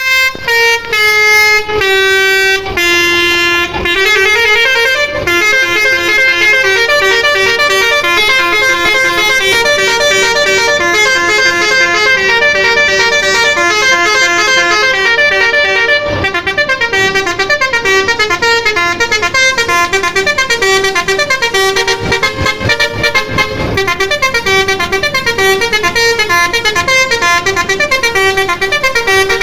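Indonesian bus 'telolet' multi-tone horn playing melodies: a few longer notes first, then from about five seconds in a fast, unbroken run of changing notes.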